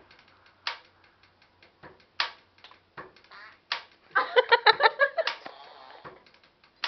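An improvised percussive beat: sharp hits about every second and a half with lighter ticks between them, then a quick flurry of strokes about four seconds in.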